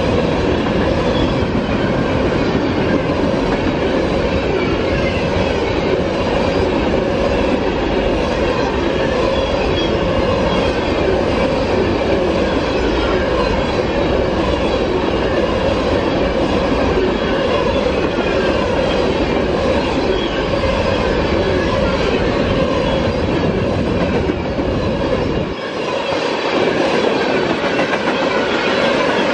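Open-top hopper cars of a CSX freight train rolling past at close range: a loud, steady rumble of steel wheels running on the rails, with the low rumble dropping away briefly about 26 seconds in.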